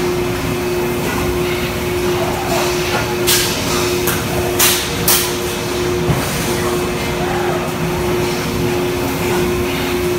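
Automated packaging line for baby wipe lids running, with a steady machine hum. A soft rising-and-falling motor whine recurs every couple of seconds, and there are short sharp hisses of compressed air from the pneumatic handling gear, three of them between about three and five seconds in.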